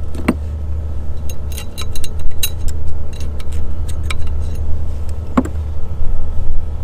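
Steel locking-hub parts clinking and rattling against each other as a ring is pushed into a truck's front wheel hub: a scatter of light metallic clicks, thickest in the middle, over a steady low hum.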